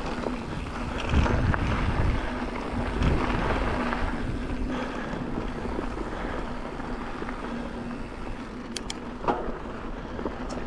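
Wind buffeting the microphone and mountain-bike tyres rolling over a dry dirt trail at speed, with a faint steady hum and a couple of sharp clicks near the end.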